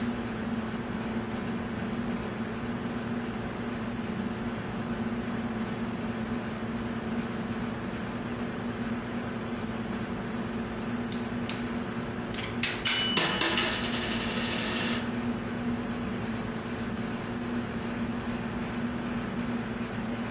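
Steady low mechanical hum throughout. A few clicks about eleven seconds in lead to about two seconds of metallic clicking and rattling from the brass coin-bank automaton's mechanism as its manipulator arm is worked by hand.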